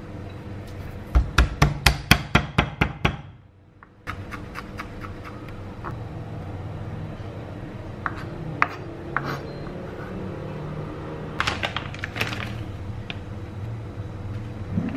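Kitchen knife chopping garlic on a wooden cutting board: a quick run of about ten sharp knocks, roughly five a second, about a second in. A few lighter, scattered clicks and knocks follow later.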